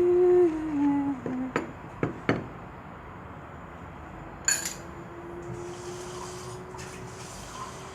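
Kitchen utensils clinking against a bowl and dishes: a few sharp clinks in the first half, one more about halfway through. It opens with a held tone that steps down in pitch over about a second.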